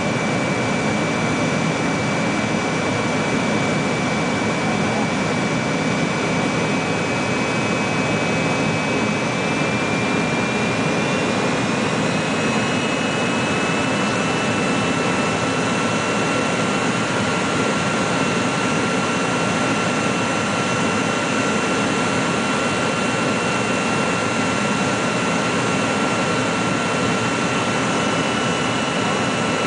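Cabin noise inside an MD-80 (Super 80) airliner on approach: a steady roar of airflow and the rear-mounted Pratt & Whitney JT8D turbofans. A high engine whine shifts up a little about ten to twelve seconds in, and a second, lower whine joins it.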